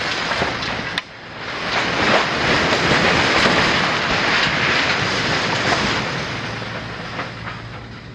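Brick industrial chimney collapsing after an explosive demolition charge: a long crash of falling masonry that swells over the first few seconds and slowly dies away, with a sharp crack about a second in.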